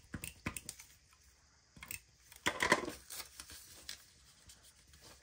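Small clicks, taps and paper rustles of hands working on a journal page, with one short, louder scratchy rasp about two and a half seconds in.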